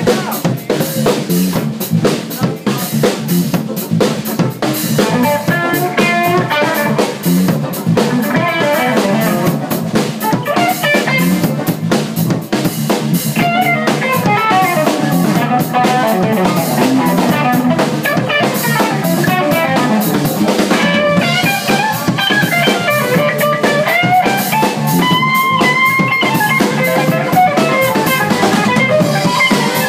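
Live funk band playing: drum kit and bass holding a steady groove while a semi-hollow-body electric guitar plays a lead line over it.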